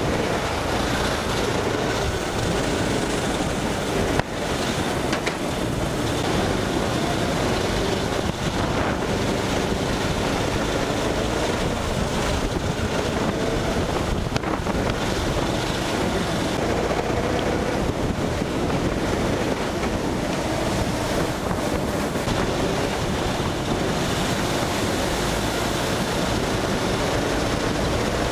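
Go-kart engines running hard, their pitch rising and falling through the corners, with wind rushing over the onboard microphone. A single sharp knock about four seconds in.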